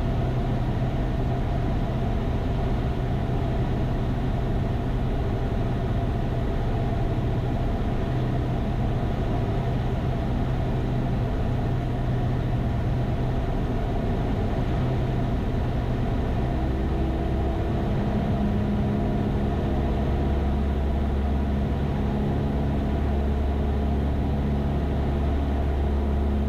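Cessna 172 Skyhawk's piston engine and propeller droning steadily, heard inside the cabin in flight. The tone of the drone shifts slightly about two-thirds of the way through.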